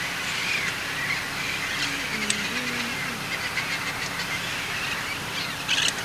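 A roosting flock of parrots, mostly red-crowned parrots, calling over one another in a steady chatter, with a louder burst of squawks near the end.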